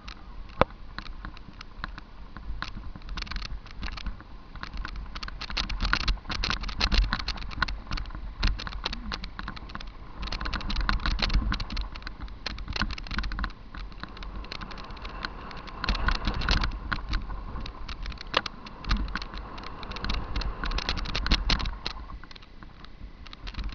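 Onboard sound of a mountain bike descending a rough dirt and stony trail: a dense, irregular clatter of rattles and knocks from the bike and camera shaking over the bumps, with a low rumble of tyre and wind noise underneath. The clatter grows louder in stretches over the rougher ground.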